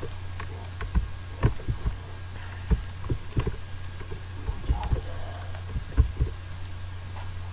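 Irregular soft clicks and taps of computer keys being pressed, over a steady low electrical hum.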